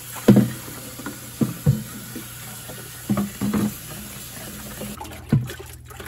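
Kitchen sink sprayer faucet running water into a plastic humidifier tank as it is rinsed, with several thuds as the tank is handled; the water shuts off about five seconds in.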